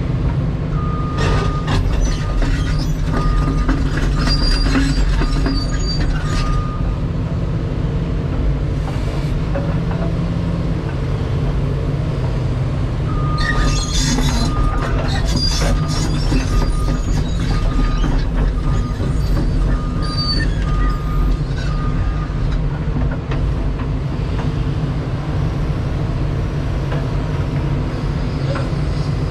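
Kobelco 350 excavator's diesel engine running steadily as the machine moves. There are metallic squeaks and knocks from the machine, and a short repeating beep sounds during two stretches, from about a second in to about seven seconds and again from about 13 to 22 seconds in. The hammer is not striking.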